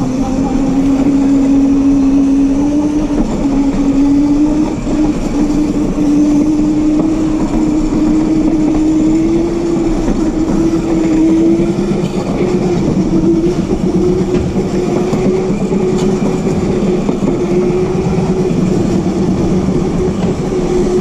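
Razor Crazy Cart's electric drive motor whining steadily as the cart drives over a tiled floor, its pitch climbing slowly over the first dozen seconds as it gathers speed and then holding, with the rumble of its small wheels on the tiles underneath.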